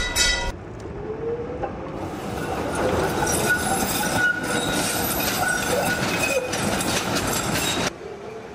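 Tram running on rails: a steady rolling rumble with repeated rail-joint clicks and a faint wheel squeal, cutting off suddenly near the end.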